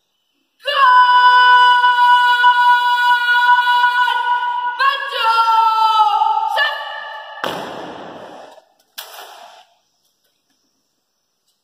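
A long, drawn-out shouted drill word of command in a high voice, held on one pitch for about three seconds, then stepping up and sliding down. Two short noisy bursts follow, the first near the middle and a fainter one about a second and a half later.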